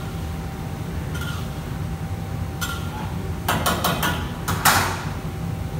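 Pots, pans and utensils clanking in a commercial kitchen: a couple of light clinks, then a quick run of sharp metal knocks a little past halfway, the last one the loudest, over the steady low hum of the extractor hood and range.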